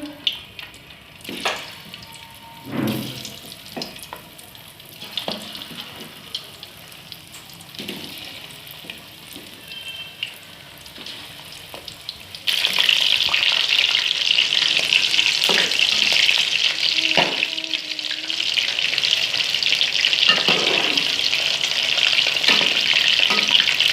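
A few scattered knocks and clicks, then about halfway in a sudden loud, steady sizzle of batter-coated chicken pieces frying in hot oil.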